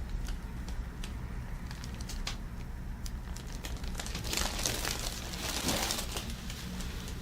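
Rustling and crinkling from a hands-on massage, hands moving over the patient's clothing and the treatment table's covering, with scattered small clicks and a louder spell of rustling a little past the middle, over a low steady hum.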